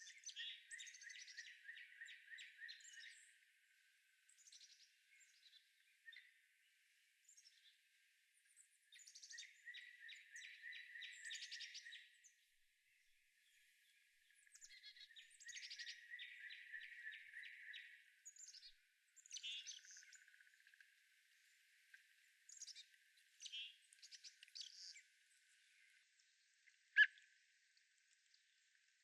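Forest birds calling. A fast trill of about three seconds comes three times, with short chirps and whistles between, and a sharp, clicky call near the end is the loudest sound.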